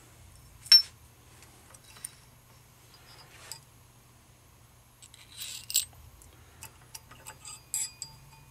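Small steel transmission parts (gears, a needle-bearing cage, washers) clinking and clicking as they are worked off a shaft and slid onto a rod by hand: one sharp metallic click just under a second in, then scattered lighter clinks, busiest around the middle and near the end, over a faint steady low hum.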